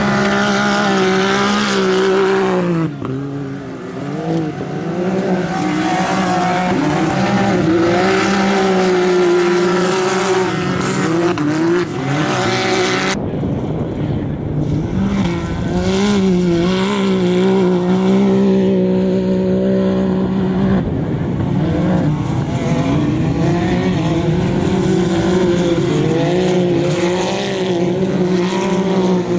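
Race UTV engines running hard at high revs as the cars slide through dirt turns, the pitch dipping and rising with the throttle. The sound changes abruptly about 13 seconds in.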